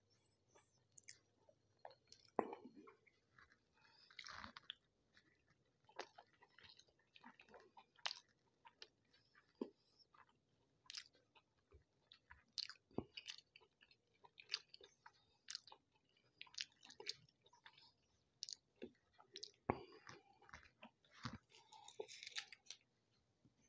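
Close-miked chewing and mouth sounds of a person eating flatbread and curry, made up of irregular sharp clicks and smacks. Near the end there is a brief rustling tear as a piece of bread is pulled apart.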